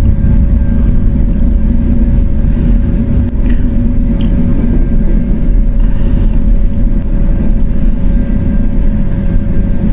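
Steady low rumble with a constant hum, with a few faint sharp clicks, likely small tools working on the MacBook's metal keyboard frame.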